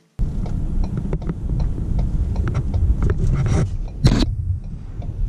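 Low road and engine rumble heard from inside a moving vehicle's cab, with scattered light ticks and a brief louder rush about four seconds in.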